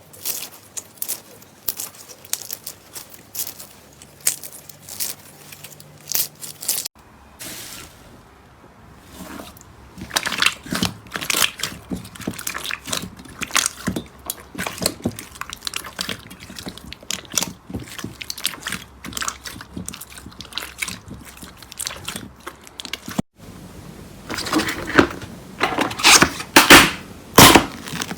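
Slime being handled and pressed, making rapid irregular crackling and popping clicks, in a few short clips with abrupt cuts about a quarter of the way in and near the end.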